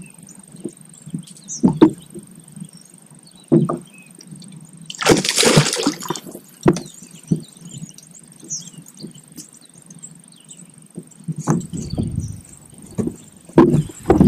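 A hooked largemouth bass splashes at the surface once, loudly, for about a second, starting about five seconds in. Scattered short knocks and bumps are heard before and after.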